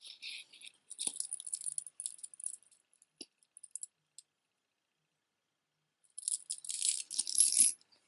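Beaded costume jewelry clinking and rattling as it is handled: a light clatter of small clicks for the first few seconds, then a louder spell about six seconds in.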